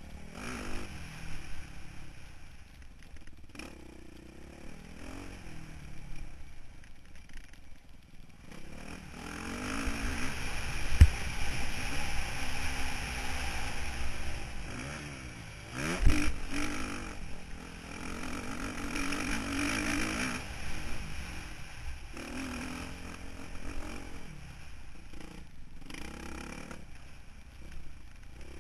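Motocross bike engine revving up and falling back as it is ridden over the track, heard through a helmet camera with wind rushing over the microphone. Two hard knocks stand out, about a third of the way in and again just past halfway.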